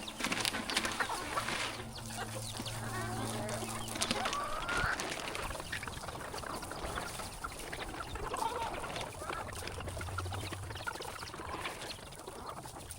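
Chickens and ducks clucking and calling in scattered short calls as they feed on worms.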